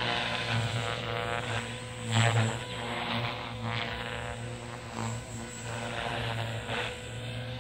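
JR Forza 450 radio-controlled helicopter flying aerobatics: a steady hum of its electric motor and spinning rotor blades that swells and eases in loudness and pitch as it manoeuvres, loudest about two seconds in.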